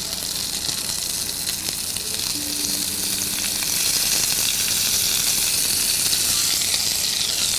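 Butter melting and sizzling in a hot stainless-steel saucepan of lamb and fresh herbs: a steady frying hiss that grows a little louder about halfway through.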